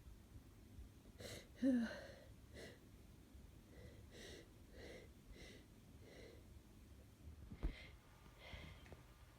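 A person with a head cold catching quiet, short breaths, with a brief voiced gasp early on and then a run of breaths about every half second, as a sneeze threatens but doesn't come. A single sharp click sounds about three-quarters of the way through.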